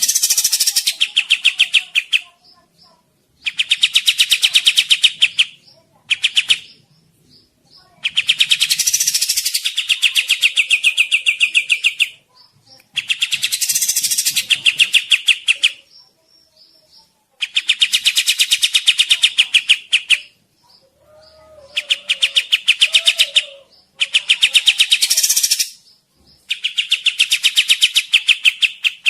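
Sikatan (Old World flycatcher) singing in about nine bouts of rapid, machine-gun-like repeated notes, each bout lasting a few seconds with short pauses between.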